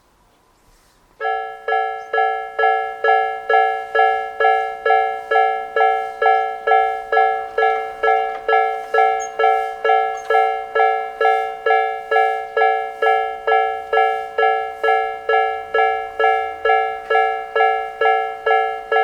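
Japanese railway level-crossing warning bells start up about a second in and ring on steadily, a little over two strokes a second. Two electronic alarms with different tones, a Nikko-type bell and a 'pon-pon' Tojo-type bell, strike exactly in step.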